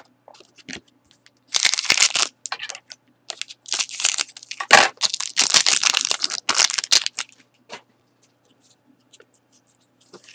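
Foil wrapper of a 2013-14 Panini Select hockey card pack being torn open and crinkled by hand: a short rip about a second and a half in, then a longer stretch of ripping and crinkling from about four to seven seconds in, with a sharp snap near its start.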